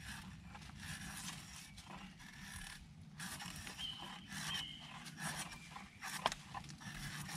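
A bushcraft knife, its tip wedged into a stick to work as a drawknife, shaving bark and wood off a stick in a series of irregular scraping strokes. One sharp knock about six seconds in.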